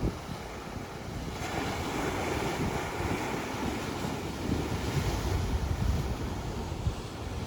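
Wind buffeting the microphone over the steady wash of sea surf, growing louder about a second and a half in. A single sharp click right at the start.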